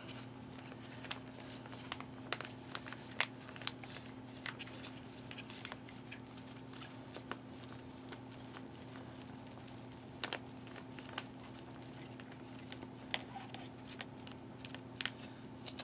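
Foil-lined ration pouch crinkling faintly as hands squeeze its rice out, with scattered small clicks, over a steady low hum.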